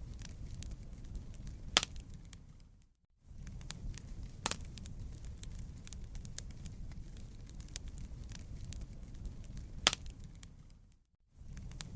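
Wood fire crackling in a fireplace: a steady low rumble under many small snaps, with a few louder pops. Twice the sound fades briefly to silence and comes back.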